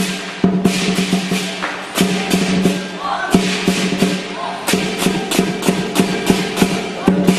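Lion dance percussion: a drum beaten in quick, driving strokes with cymbals crashing on the beat and a steady ringing tone underneath.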